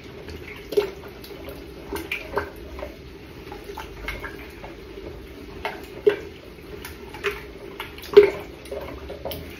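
Wooden spoon stirring a thick liquid mix of coconut milk, lentils and vegetables in a large stainless steel stockpot, the liquid sloshing and the spoon knocking against the pot at irregular intervals, the sharpest knock about eight seconds in. A steady low hum runs underneath.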